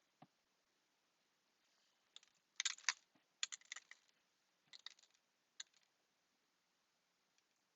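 Light, sharp clicks and taps in four quick clusters, between about two and six seconds in: small cut-out pieces being handled and set down on a hard surface.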